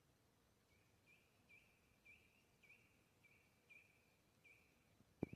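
A faint small bird repeating a short high call about twice a second, over quiet forest background. A single sharp click near the end.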